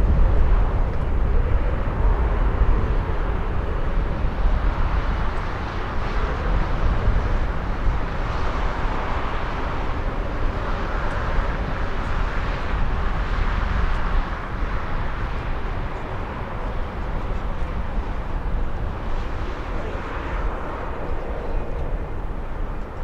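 Twin-engine jet airliner's engines at takeoff power: a steady, deep rumble that eases off slightly about two-thirds of the way through.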